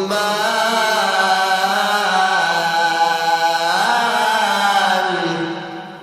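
A man's voice in Egyptian mujawwad-style Quran recitation, holding one long ornamented phrase. The pitch swoops up and back down about four seconds in, and the voice fades out near the end.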